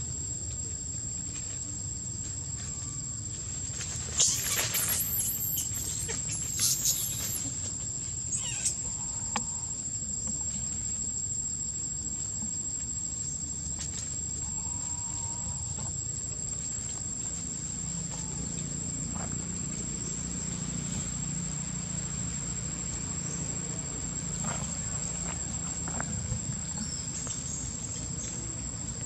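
Young long-tailed macaque giving shrill, wavering screams in two bouts about four and seven seconds in, over a steady high-pitched insect drone that runs throughout.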